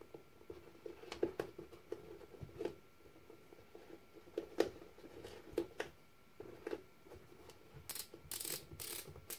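Hands fitting a BOA lacing dial back into a safety boot's tongue: scattered faint clicks of the plastic mechanism and fabric rustling, with a few short scraping rustles near the end.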